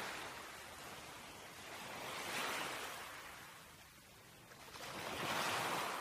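Ocean surf: waves washing in and drawing back, three slow swells of hiss a little under three seconds apart.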